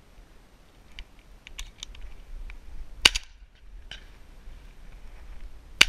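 Two close shotgun shots fired at doves, the first about three seconds in and the second near the end, each a sharp crack with a short ring after it.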